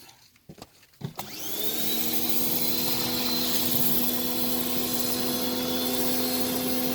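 Sun Joe electric pressure washer's motor and pump starting up about a second in and then running steadily with a whine and the hiss of the spray.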